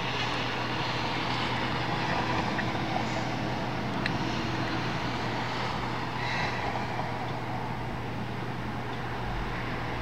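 Steady, even outdoor rumble with a low hum under it and a faint drawn-out tone a few seconds in.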